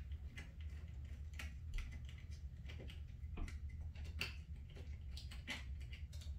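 Faint, irregular small clicks and taps of an Allen key and small screws being fitted into a plastic motor-mount cap on a belt-drive electric skateboard, over a low steady hum.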